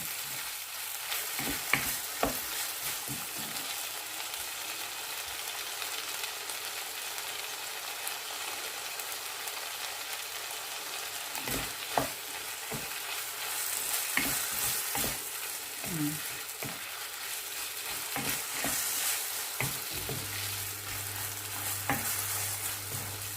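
Pork belly and tomatoes sizzling in a frying pan while being stirred, with a utensil knocking against the pan now and then; the tomatoes are cooking down until soft.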